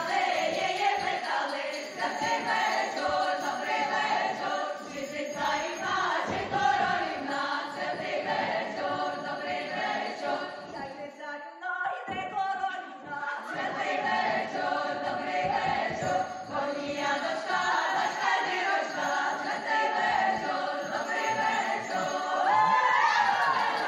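A chorus of stage actors singing together, with a short break about halfway through. Near the end, higher voices slide up and down over the singing.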